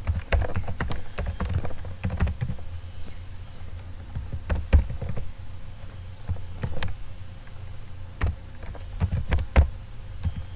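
Typing on a computer keyboard: irregular runs of key clicks with short pauses between them, a few keystrokes louder than the rest.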